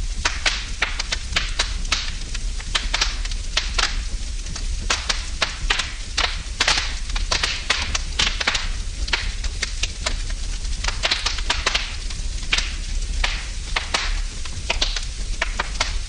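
Wood fire burning in a fireplace, crackling with frequent, irregular sharp pops and snaps over a steady low rumble.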